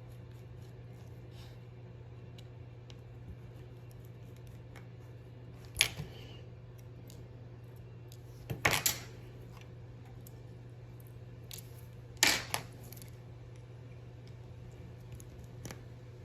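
Small metal clicks and clatters of watchmaker's tools and tiny movement parts being handled and set down on the bench, with three louder clacks about six, nine and twelve seconds in, over a steady low hum.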